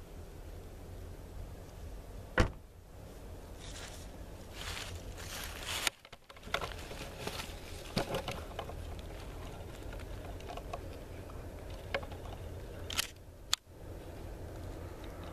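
Handling noise from a handheld camera: scattered clicks, knocks and scraping rustle as it is moved, with two brief dropouts, over a steady low rumble.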